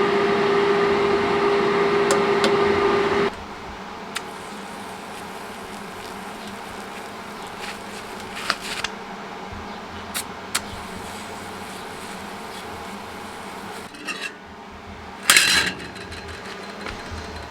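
A machine buzzing steadily with one held tone for about three seconds, then cutting off. A few light clicks and taps follow, and a short hiss comes about fifteen seconds in.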